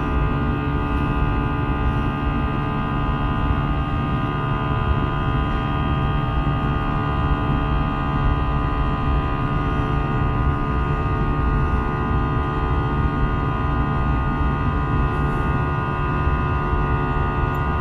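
Airbus A320's CFM56 turbofan engines under climb thrust, heard inside the cabin over the wing: a steady low rumble with many held whining tones layered above it.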